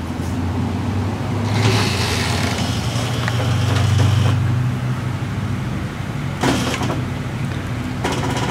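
Hydraulic floor jack being let down so the car settles onto a jack stand, with a hiss for a couple of seconds from about one and a half seconds in. A low steady hum runs underneath.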